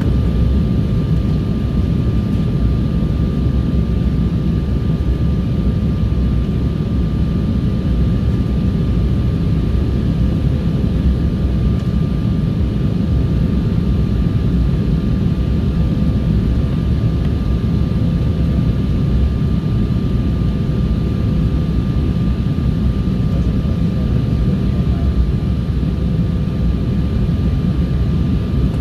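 Steady cabin drone of an airliner in flight: jet engine and airflow noise, deep and even, with a faint steady hum running through it.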